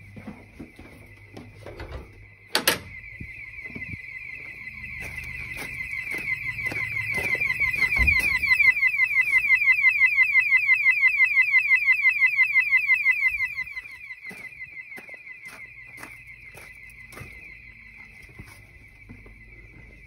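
Intruder alarm sounders under test from the control panel: a steady high electronic siren tone that swells into a loud, fast-warbling external bell box siren from about five to thirteen seconds in, then drops back to a quieter tone. A single sharp knock, a door, comes about two and a half seconds in.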